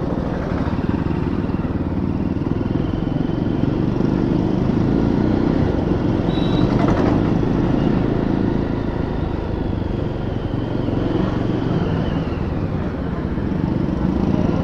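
Yezdi Roadster's single-cylinder engine running steadily at low speed in slow town traffic.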